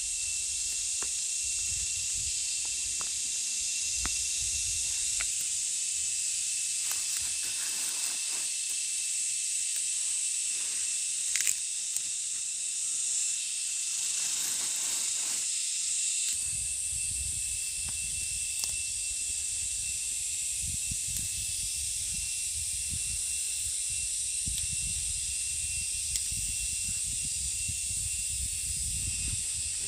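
Steady high-pitched drone of an insect chorus, with a low wind rumble, a few brief rustles, and one sharp click about eleven seconds in.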